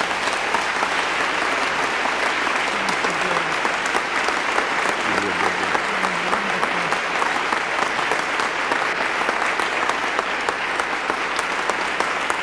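Large audience applauding, dense steady clapping held throughout as a sustained welcoming ovation, with faint voices underneath.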